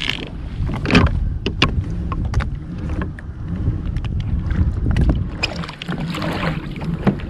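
Low rumbling water and wind noise around a kayak on the ocean, with scattered sharp clicks and knocks from fishing gear being handled.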